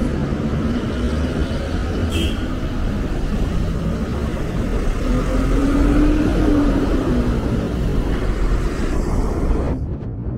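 City street traffic: motor vehicles running past with a steady low rumble and tyre hiss. A vehicle's engine note rises and then falls as it passes in the middle, and the hiss drops away suddenly near the end.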